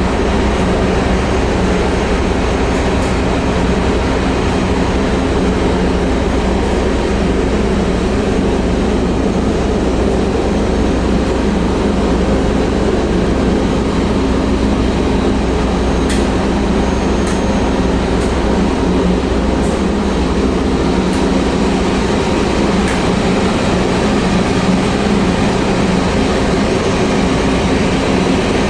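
Steady, loud machinery running aboard a ship, an unbroken drone with a low hum.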